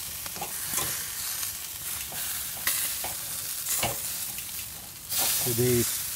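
Venison chops sizzling on a grill: a steady hiss broken by a few sharp crackles.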